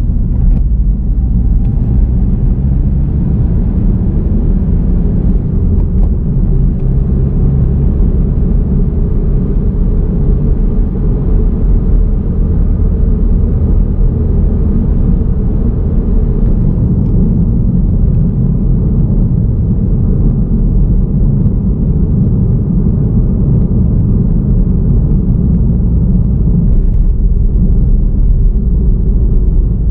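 Car driving at steady speed: a continuous low rumble of road and engine noise, unchanging throughout.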